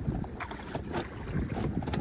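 Wind buffeting the microphone over water lapping against a small boat, with a few short knocks or slaps.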